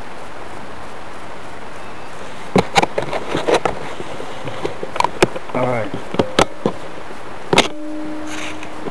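Sharp, irregular clicks and knocks from a paintball gun and its mounted camera over a steady hiss, starting a couple of seconds in. Near the end a loud click is followed by a steady low buzz.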